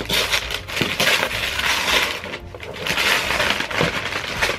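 Christmas wrapping paper being torn and pulled off a cardboard box: continuous tearing and crinkling of paper, with a brief lull about halfway.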